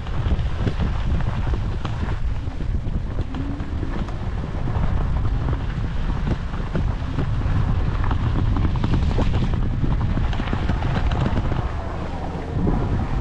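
Wind buffeting a GoPro's microphone during an e-bike ride, with the tyres crunching and rattling over a gravel road. The wind rumble is steady and eases off briefly near the end.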